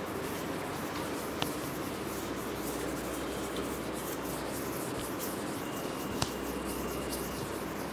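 Chalkboard duster wiping chalk off a blackboard: a steady rubbing, brushing sound, with a couple of light taps.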